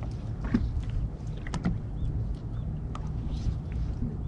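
Steady low rumble of wind and water around a small fishing boat, with about four light clicks and knocks.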